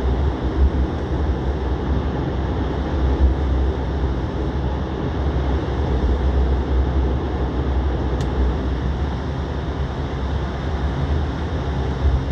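Airliner cabin noise as the aircraft taxis: a steady deep rumble of the engines and airframe, with one light click about eight seconds in.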